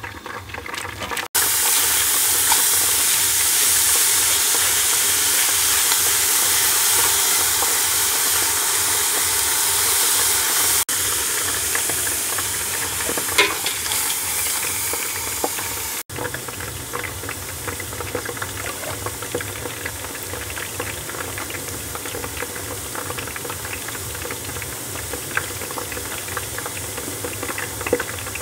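Sunflower seeds roasting in a hot metal pot, sizzling as they are stirred with a wooden spoon, with a dense patter of seeds rattling and scraping against the pot. The sizzle is loudest in the first half and settles lower after about halfway.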